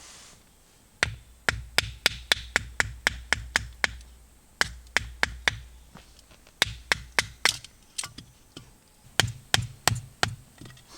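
Repeated sharp knocks struck in runs of several blows, about three a second, with short pauses between the runs.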